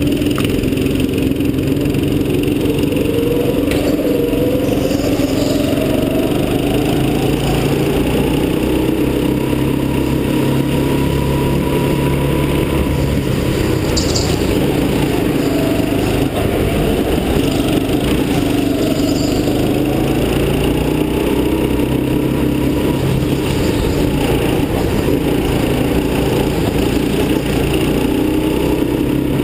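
Small go-kart engine heard from on board the kart, running continuously, its pitch rising and falling again and again as the kart speeds up and slows around the track.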